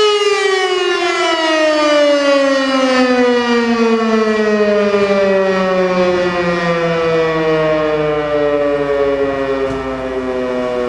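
Elektror L52 electric siren winding down during its fire-alarm signal: its loud, steady howl starts falling in pitch right at the start and keeps sinking slowly as the rotor coasts down.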